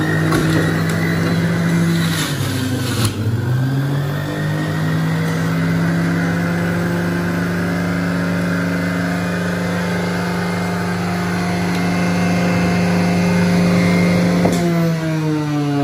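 Electric juicer's motor running steadily with a loud hum. Its pitch sags and recovers about two to three seconds in. A sharp click comes near the end.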